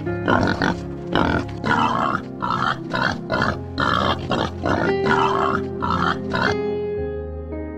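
A boar grunting in a quick, even series, about three grunts a second, over background music. The grunting stops about a second before the end, leaving only the music.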